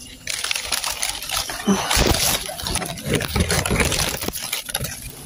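Water sloshing and splashing, with dull low thumps mixed in, lasting about four and a half seconds before it stops near the end.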